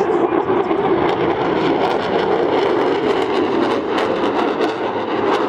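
Jet noise from an F-22 Raptor's twin Pratt & Whitney F119 turbofan engines during a low demonstration pass: a loud, steady rush with a crackling edge that is strongest through the middle of the pass.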